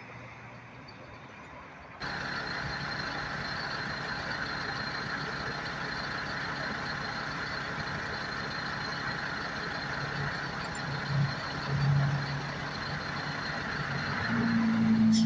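Trucks passing on a road: steady tyre and engine noise that jumps louder about two seconds in, with a thin high whine over it. A deep, steady pitched tone, louder than the rest, comes in near the end.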